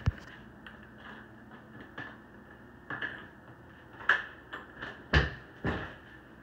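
A handful of scattered knocks and thumps at irregular intervals, like cabinet doors or hard objects being bumped. The loudest, deepest thumps come just after the start and about five seconds in.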